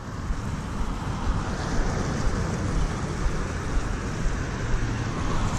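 Steady rushing of wind on a motorcycle rider's camera microphone, mixed with tyre hiss on a wet road as the motorcycle rides along.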